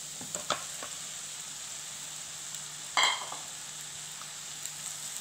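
Steady sizzle from a pan of fried onions and spices as cooked rice is tipped in from a bowl. There are a few light ticks in the first second and one sharp clink about three seconds in.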